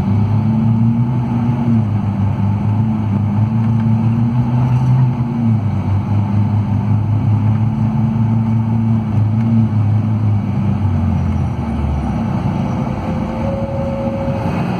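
Scania DC13 440 hp diesel engine of a double-decker coach running under way, heard from inside the cabin as a steady low drone whose pitch shifts a few times. About twelve seconds in the drone falls away as the bus eases off.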